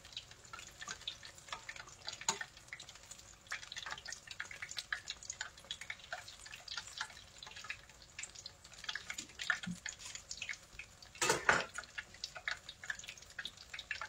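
Battered chicken tenders deep-frying in a pot of hot oil: the oil sizzles with a dense, irregular crackle of small pops. About eleven seconds in there is one brief, louder knock.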